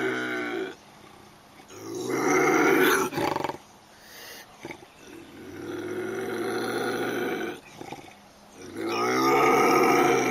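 Lynx calling: a series of long, drawn-out yowls, the end of one right at the start and three more about every three seconds, each lasting one to two seconds.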